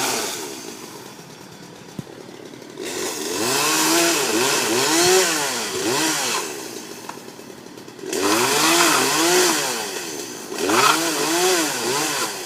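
Two-stroke chainsaw revving in several bursts, its engine pitch swinging up and down within each burst as the saw works into a tree trunk.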